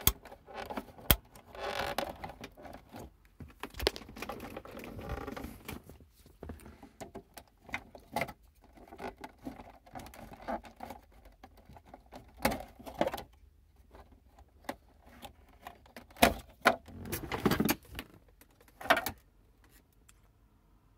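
Scattered sharp plastic clicks and short rustling scrapes from handling a car radio unit and its wiring-harness plugs in the dashboard.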